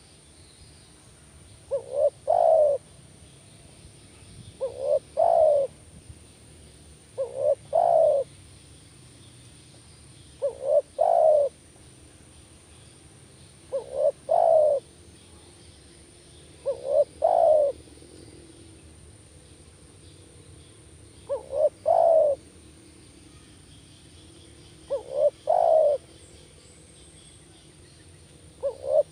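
Spotted dove cooing: a phrase of two short quick notes and a longer coo, repeated about every three seconds.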